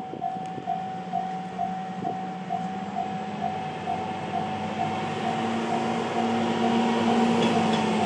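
Japanese level-crossing alarm ringing its electronic bell, about two strokes a second. Under it a single-car Tenryu Hamanako Railway diesel railcar approaches: its engine hum rises a little in pitch about five seconds in, and the engine and rail noise grow steadily louder.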